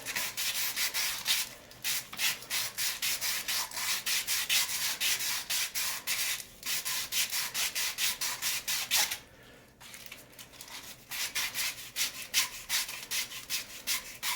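Sandpaper rubbed quickly back and forth by hand on the end of a pipe, about four to five strokes a second, with a short break twice and a pause of about two seconds in the second half. The pipe is being roughened for a coupler joint.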